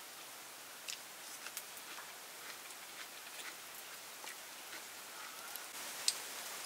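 Small, scattered clicks and clinks of a spoon against a bowl and plate during a meal, over a steady background hiss; one sharper clink about six seconds in as the spoon works at the plate.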